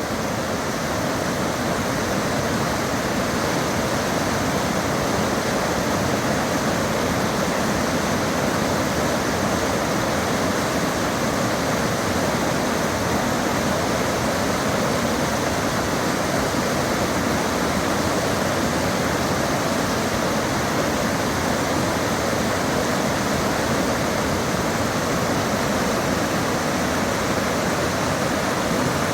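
Waterfall in spate after rain: a steady, even rush of falling water.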